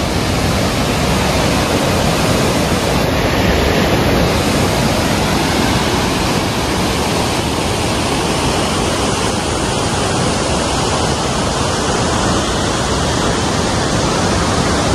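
A fast mountain river rushing over boulders: a loud, steady wash of water.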